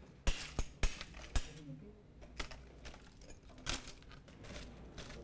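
Metal spoon knocking and scraping on a hard, oven-baked salt crust over a fish, cracking it open: four sharp taps in the first second and a half, then a few quieter knocks.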